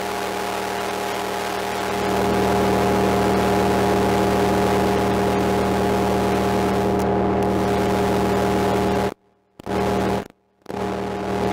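Soma Lyra-8 organismic synthesizer droning through a Radial Tonebone Classic tube distortion pedal: a heavily distorted, hissy drone holding a few steady pitches. It grows louder about two seconds in and cuts out abruptly twice near the end, coming back each time.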